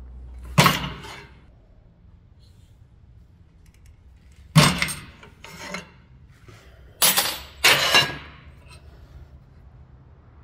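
Homemade lever-operated shear cutting 6 mm mild steel round bar: sharp metal snaps and clanks, five in all, spaced out with two close together near the end.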